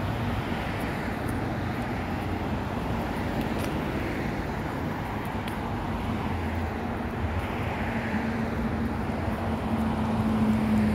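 Road traffic passing on the road alongside: a steady wash of tyre and engine noise with cars swelling past. A low engine hum grows toward the end.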